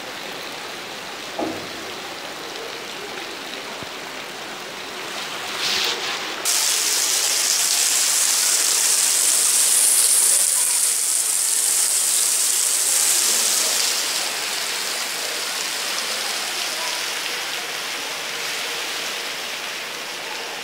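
Heavy rain pouring down, a steady hiss of the downpour hitting the ground. About six and a half seconds in the sound jumps suddenly louder and brighter, then eases off somewhat after about fourteen seconds. A single short knock comes about a second and a half in.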